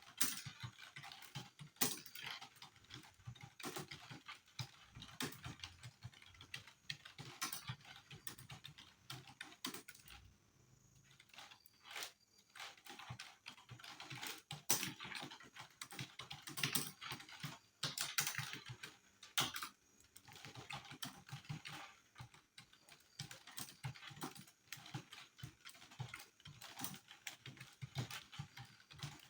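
Rapid, continuous typing on a computer keyboard: a dense, irregular run of key clicks during a speed typing test, with a short pause about ten seconds in.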